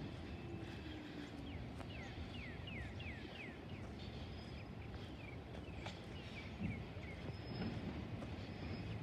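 Distant Peterbilt garbage truck running as a steady low rumble, with a bird giving a series of quick, short falling chirps over it.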